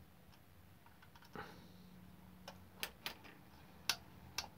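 A handful of faint, sharp clicks and taps from a small precision screwdriver driving the last screw into a model locomotive tender and being put down, spread irregularly over a few seconds.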